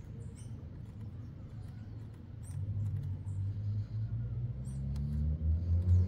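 Faint light metallic clicks and ticks as a small screw is threaded by hand into the sprocket on the e-bike's gearbox output shaft. A low rumble swells from about two and a half seconds in and is loudest near the end.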